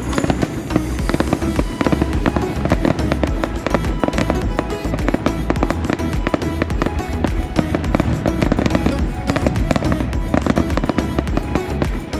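Fireworks going off in quick succession, a dense run of cracks and pops with no break, with music playing over them.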